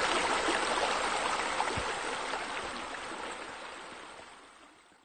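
Running water like a babbling stream, a steady rushing trickle that fades away steadily and is gone by the end.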